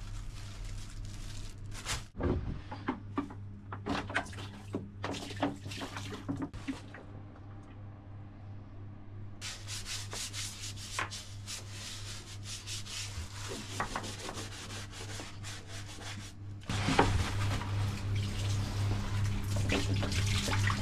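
Hands scrubbing and wiping thick grease off a boat's propeller-shaft and stern-tube area with paper towels and a scouring pad, with plastic-bag rustles and small knocks, over a steady low hum. The rubbing grows louder and busier near the end.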